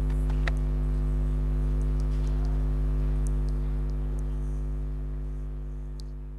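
Steady electrical mains hum with a few faint clicks about half a second in, fading out over the last few seconds.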